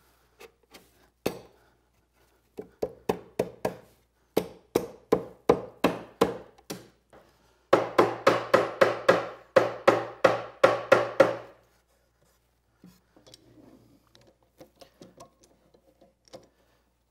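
A wooden mallet tapping a wooden divider down into dados in the end pieces of a box: runs of quick, sharp knocks, about three or four a second, in three bursts, each knock with a short woody ring.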